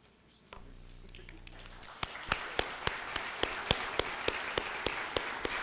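Audience applause rising about two seconds in, with sharp individual claps standing out above the steady clapping of the crowd.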